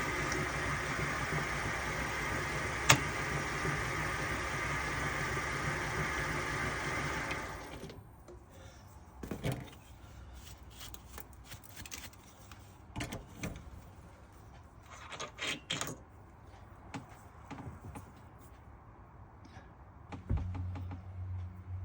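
A small workshop machine tool's motor running steadily, with one sharp click about three seconds in, switching off about eight seconds in. Then come scattered clicks and clinks of metal tools and parts being handled. A steady low motor hum starts near the end.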